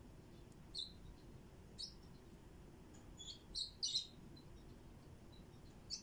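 Lovebird chirping: short, high chirps about a second in and two seconds in, then a quick run of three or four a little past three seconds in, the loudest near four seconds, and one more at the end.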